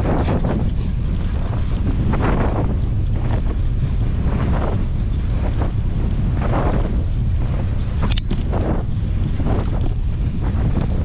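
Wind buffeting the camera microphone: a steady low rumble with gusty swells every second or two.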